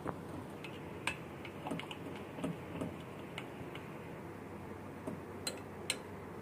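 Metal spoon stirring melting chocolate ganache in a glass bowl, clicking lightly and irregularly against the glass, over a low steady background noise.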